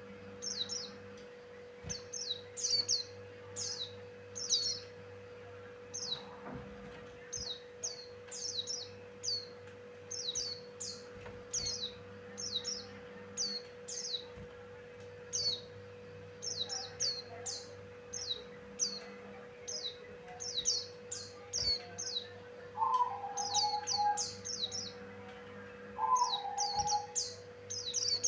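Pleci Buxtoni white-eye singing: a continuous run of short, high chirps, often in quick clusters of two to four, over a steady low electrical hum. Two brief lower calls come in a few seconds before the end.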